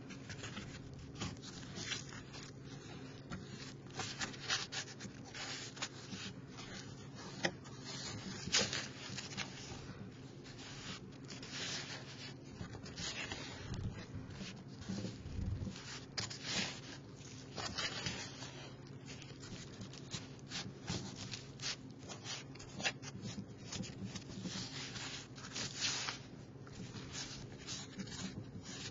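Hands kneading and squishing homemade kinetic sand (sand, cornstarch and oil) in a plastic tray: an irregular run of rubbing and scraping noises as the damp mixture is worked through.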